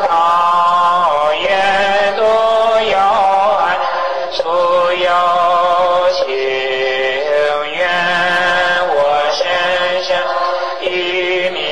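A voice chanting Buddhist dedication verses in Chinese to a slow melody, with long held notes that glide from one pitch to the next, over a steady musical backing.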